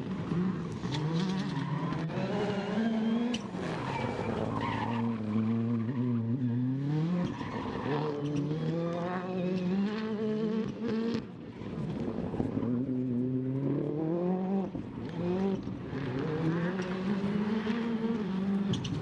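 Ford Fiesta R5 rally car's 1.6-litre turbocharged four-cylinder engine driven hard on a stage, its pitch climbing and dropping again and again through gear changes and lifts, with a short dip about eleven seconds in.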